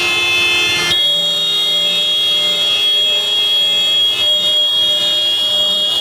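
Vehicle horns honking nonstop in dense city street traffic, several held at once and overlapping, played over a hall's speakers. About a second in, the mix shifts to one steady high-pitched horn that holds on through the rest.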